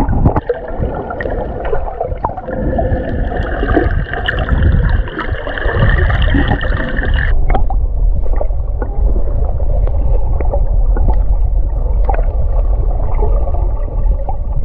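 Muffled rumbling and gurgling of water around a camera held in the sea during snorkeling. The sound turns duller about halfway through.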